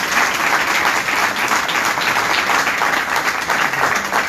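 A group of people applauding, many hands clapping together without a break.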